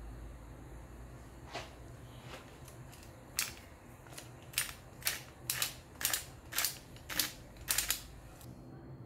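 Handheld dual salt-and-pepper grinder grinding peppercorns: about ten sharp crunching clicks, roughly two a second, starting about three seconds in.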